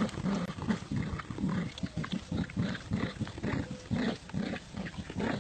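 Dogs play-growling during a tug-of-war over a toy: a continuous run of short, rough growls, several a second.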